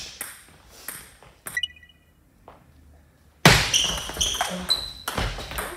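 Table tennis rally: the ball clicks off rackets and the table in quick succession, stops for a short lull near the middle, then a new rally starts with a loud hit and more ball clicks.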